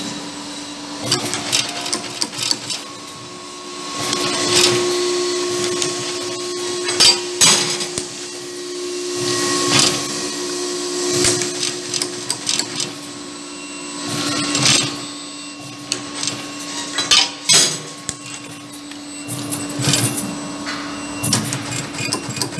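WAFIOS BM6 CNC wire bending machine running through its bending cycles. A steady drive hum with a higher whine swells every few seconds as the axes move, and it is broken by many sharp metallic clacks as the bending head and feed work the wire.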